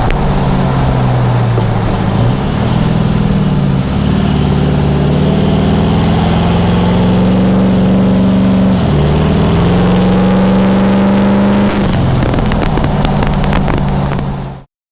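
Car engine running through an aftermarket Manta exhaust under acceleration. Its pitch climbs slowly, then drops at gear changes about two and nine seconds in. The sound cuts off suddenly near the end.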